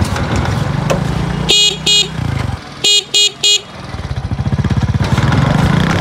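Motorcycle engine running on the move, with an electric horn giving two short beeps and then three quick beeps about three seconds in. The engine sound drops away around the beeps and picks up again about four seconds in.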